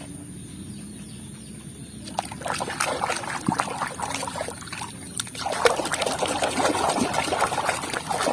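Water splashing and trickling as a muddy plastic toy animal is washed. The splashing starts about two seconds in and gets louder past the middle.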